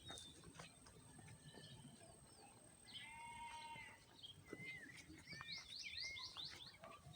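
Faint, high animal calls, most likely birds: a trilled call about three seconds in, then a quick run of repeated falling notes.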